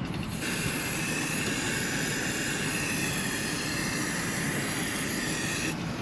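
Aerosol spray-paint can hissing in one continuous, steady spray of about five seconds. It starts about half a second in and cuts off shortly before the end.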